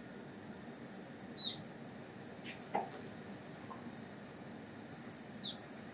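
Marker squeaking on a whiteboard as a diagram is drawn: a few short, high squeaks, one about a second and a half in and another near the end, with faint scratchy strokes between.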